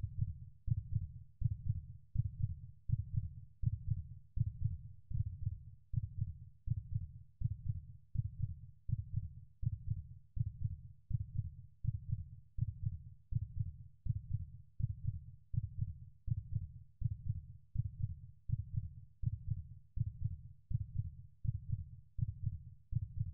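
Heartbeat sound effect: low, muffled thumps repeating steadily, about two a second.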